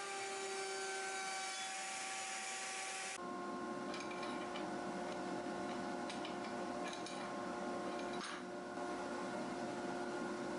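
A shop power-tool motor running steadily with a constant whine. Its tone shifts abruptly about three seconds in, and a few faint clicks follow.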